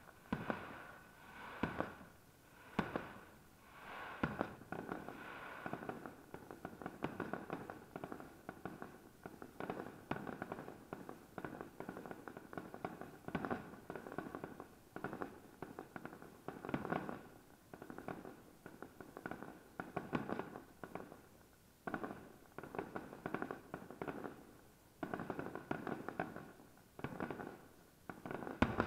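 Aerial firework shells bursting in quick, irregular succession: sharp bangs every second or two, with stretches of dense crackling pops between them.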